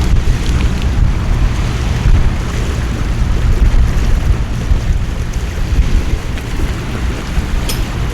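Storm wind buffeting the microphone in heavy, rolling low rumbles over a steady hiss of downpour rain and water. There is one small sharp tick near the end.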